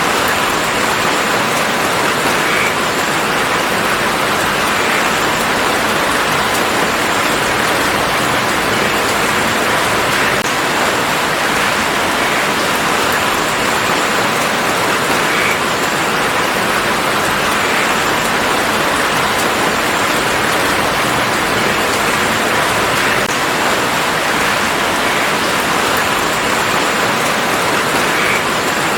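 Steady rain falling on a garden: an even, unbroken hiss of drops that neither builds nor lets up.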